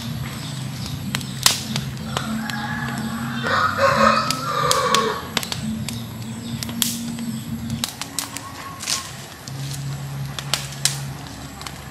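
Wood fire crackling, with sharp snaps and pops scattered throughout as the split-wood stack catches. A rooster crows about two to five seconds in.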